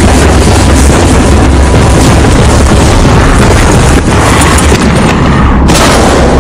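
Loud, dense booming rumble with a heavy low rumble underneath and a noisy layer over it, changing abruptly twice in the second half.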